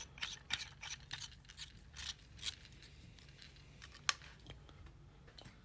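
Stainless-steel hookah stem and downstem being handled: a run of small clicks and rubs of metal and rubber parts, then one sharper click about four seconds in.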